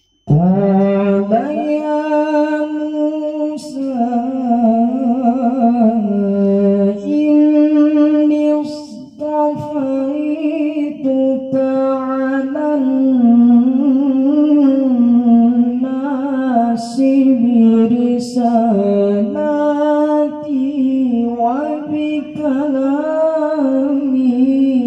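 A young man reciting the Quran in the melodic tilawah style into a microphone: long held notes with ornamented turns that rise and fall, broken by a short breath about nine seconds in.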